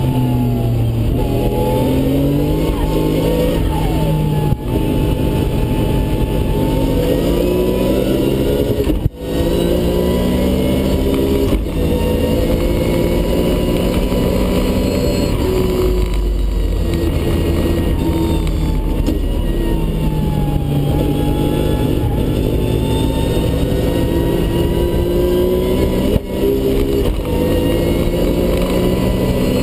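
Nissan RB26DETT twin-turbo straight-six heard from inside the car's cabin at full throttle, climbing in pitch through the gears. Each upshift on the sequential dog box brings a brief sharp break in the sound and a drop in pitch. Around halfway the engine falls in pitch as the car slows, then pulls up through the revs again.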